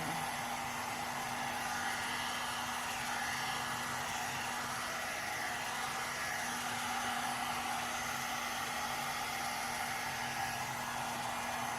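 One-step hair dryer and styler (hot-air brush) running steadily on its medium setting: a constant rush of air over a low motor hum.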